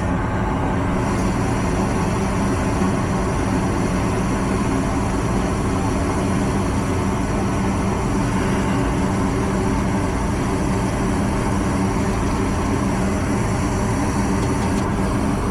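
Furnace running on a call for heat: a steady, unbroken motor drone with a low hum. It keeps running without blowing its fuse, so the heating circuit checks out.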